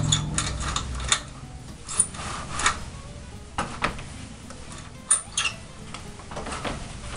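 Horizontal window blinds being handled and pulled at the bottom rail: a series of irregular sharp clicks and clacks of the slats and rail knocking together.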